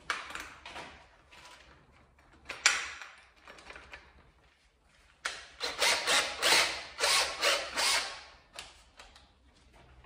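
Hand-tool handling clicks: a few single clicks, then a fast run of ratchet-like clicking from about five to eight and a half seconds in.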